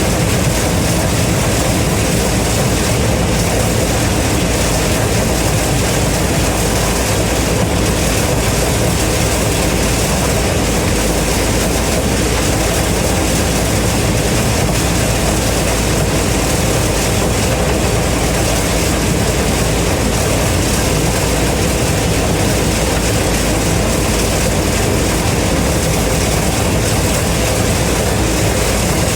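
Gleaner M3 combine running steadily while harvesting corn: a constant diesel engine drone with a low hum under the noise of the threshing machinery, unchanging throughout.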